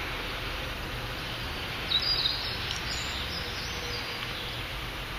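Steady outdoor background noise, with a few short, high bird chirps about two seconds in.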